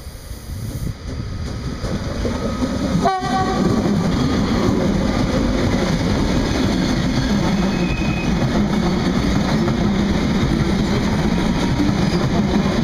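Double-headed DB Class 189 electric locomotives hauling a coal train pass close by, growing louder over the first three seconds, followed by the steady rumble and wheel-on-rail noise of the coal hopper wagons rolling past.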